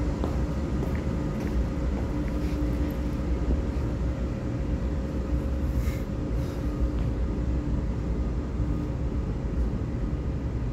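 EMU3000 electric multiple-unit express train pulling out of an underground station platform: a steady low rumble with a faint hum over it.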